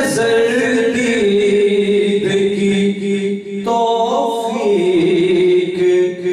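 A man's solo voice singing an Urdu ghazal through a microphone, holding long, wavering notes. A new phrase begins a little past halfway.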